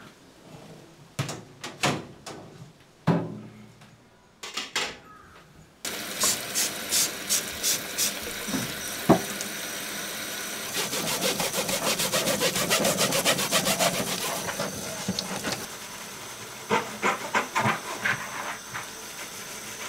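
A few light knocks of kitchen things being handled. About six seconds in, a kitchen tap comes on and water runs steadily into the sink, with quick repeated scrubbing strokes over a soapy surface.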